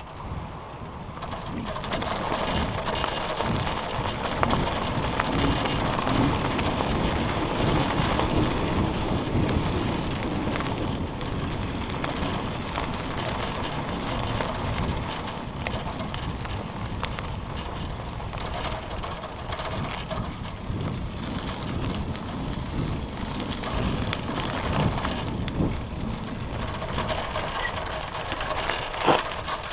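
Bicycle being ridden: a steady mechanical rattle and ticking from the drivetrain over continuous rolling noise.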